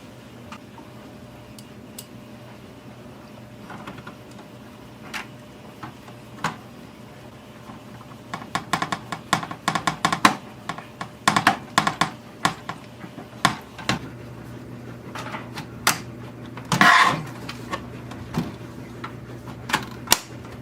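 Scattered clicks and knocks of hard parts being handled and fitted while a VHS/DVD combo player is put back together, coming thick and fast for a few seconds in the middle, with a louder half-second rush of noise about two-thirds of the way through. A faint steady hum lies underneath.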